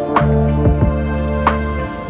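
Background music: held chords and bass notes over a few drum hits.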